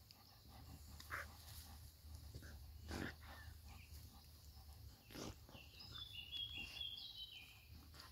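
A dog licking and snuffling at another dog's ear while grooming it: faint, soft wet licks and sniffs, with a few brief high squeaky notes near the end.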